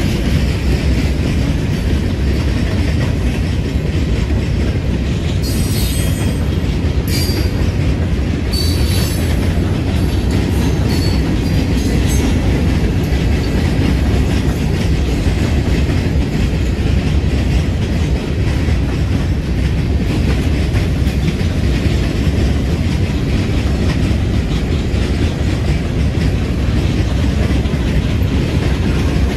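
Freight train of open-top hopper cars rolling past, a steady rumble with clattering wheels over the rail joints. Between about five and twelve seconds in, several brief high-pitched squeals come from the wheels.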